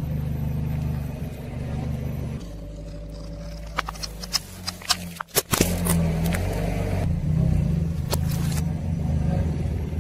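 Car engine idling with a low steady hum as its tyre rolls over small objects. Several sharp cracks and crunches come between about four and six seconds in, and another near eight seconds, as things give way under the tyre.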